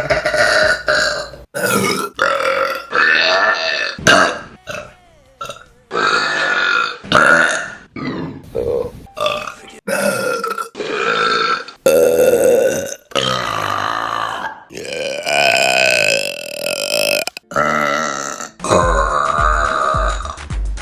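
Women burping, one loud pitched burp after another in quick succession, more than a dozen in all, each cut off abruptly as the next begins. Some are short and some are long, drawn-out belches lasting over a second.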